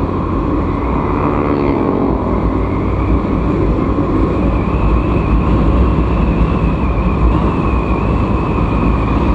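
Yamaha Vega ZR underbone motorcycle's small single-cylinder four-stroke engine running under way, mixed with wind on the microphone and road noise. The engine note rises about a second or two in as the bike picks up speed, then stays steady.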